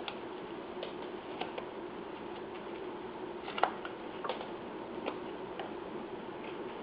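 Carving knife paring a block of wood by hand: faint, irregular clicks and scrapes as the blade takes off chips, one a little louder about three and a half seconds in, over a steady low hum.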